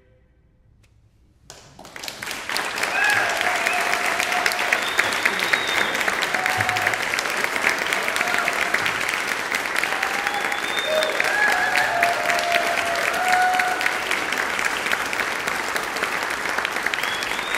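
A second and a half of near silence after the choir's final cutoff, then an audience breaks into applause: steady clapping with a few voices calling out over it.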